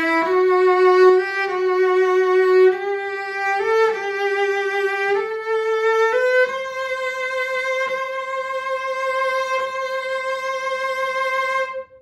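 A 7/8-size Stradivari-model cello made by Jan Szlachtowski in 2013, bowed in its high register. It plays a short run of single notes climbing step by step, then holds one long high note from about halfway through. The note stops just before the end.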